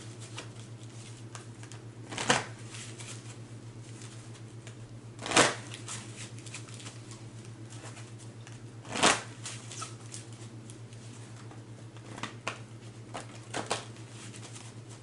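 Tarot deck being shuffled by hand: three short, brisk shuffling bursts a few seconds apart, then several lighter card flicks and taps near the end.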